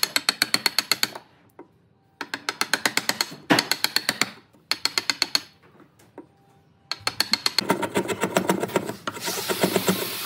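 Runs of rapid, sharp mechanical clicking, about eight clicks a second, in bursts of one to two seconds with short pauses between them; a rougher, noisier running sound builds up near the end.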